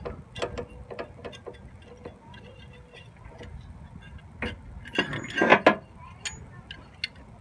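Ratchet and spark plug socket clicking as a spark plug is worked loose: scattered light metallic clicks, with a louder burst of clicking and rattling about five seconds in.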